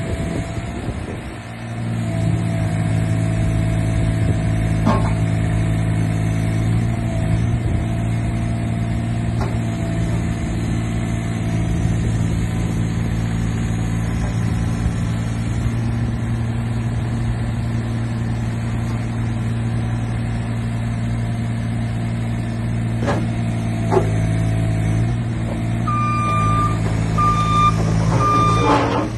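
LiuGong 9027Z mini excavator's engine running steadily under hydraulic load as the boom, arm and tracks are worked, picking up about two seconds in, with a few sharp knocks. Near the end its travel alarm beeps three times, about once a second.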